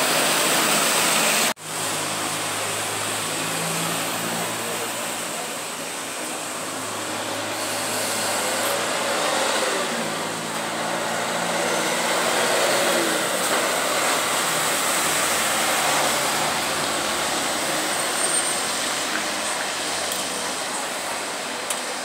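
Street traffic on wet asphalt: city buses and cars driving past, engines running under a steady hiss of tyres on the wet road. The sound cuts out for a moment about a second and a half in.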